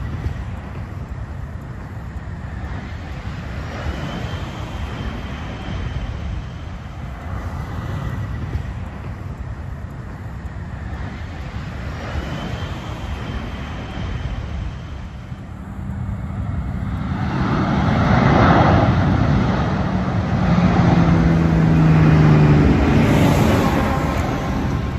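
Road traffic passing on a highway, a steady rumble of tyres and engines. In the second half, vehicles pass close by, the loudest a box truck whose low engine hum stands out near the end.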